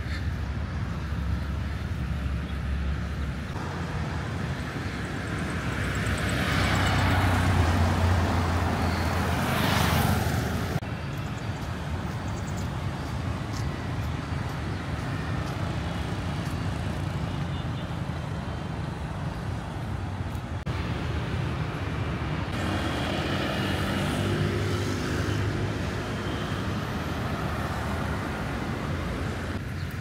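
Street traffic: a steady wash of passing vehicles with engine hum. One vehicle passes close and loud about six to ten seconds in, and another passes somewhat closer again near the three-quarter mark.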